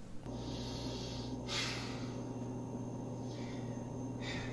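Quiet room tone with a steady low hum, broken by three short breaths, a man breathing out through his nose.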